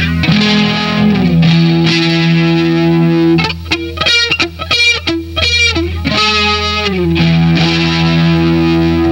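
Live rock band: a distorted electric guitar holds sustained notes over a steady bass-guitar drone, breaking for a few seconds in the middle into short choppy stabs. Notes slide down in pitch a little over a second in and again just after the choppy part.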